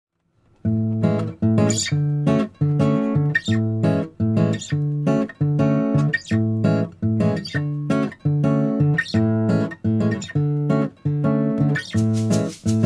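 Background music: acoustic guitar playing chords in a steady, even rhythm, starting about half a second in.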